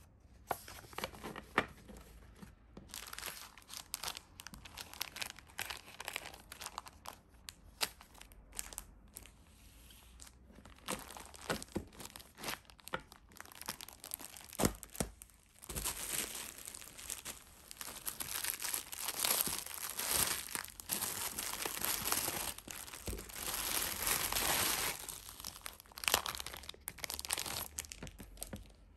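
Packaging and craft paper being handled and unwrapped: irregular crinkling and rustling with many sharp crackles, growing denser and louder about halfway through.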